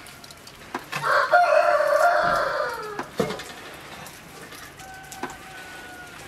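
A rooster crowing once: a long call of about two seconds that drops in pitch at the end. A fainter, thin held call follows near the end.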